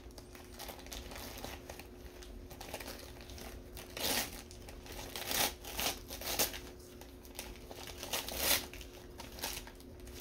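Wrapping paper crinkling and tearing as a present is unwrapped, in a series of short bursts, the loudest about four and eight and a half seconds in.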